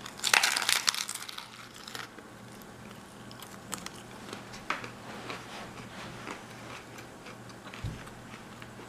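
A bite into a taco in an air-fried soft tortilla, crisp enough to give a loud crackling crunch for about a second, followed by quieter chewing crunches.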